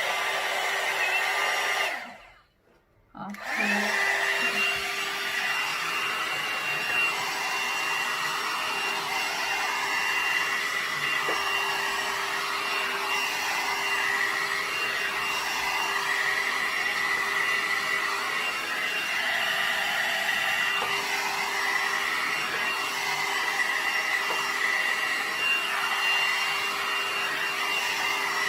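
Hot air dryer brush (paddle-style hair dryer brush) running with a steady whine over the blowing air. It cuts out for about a second and a half shortly after the start, then runs steadily again.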